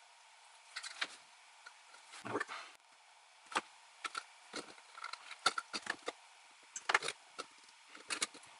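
Irregular small clicks and knocks of hand-held metal and plastic parts: a SpaceNavigator's metal base and plastic top being worked apart, with its cable tugged through the grommet in the base. Some knocks are sharper and louder than others.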